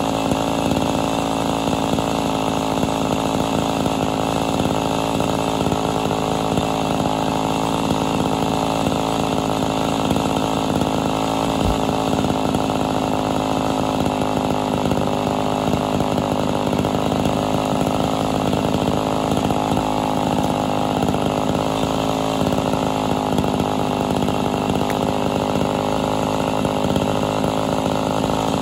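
Ported Homelite Super XL Auto two-stroke chainsaw running steadily while cutting through firewood logs.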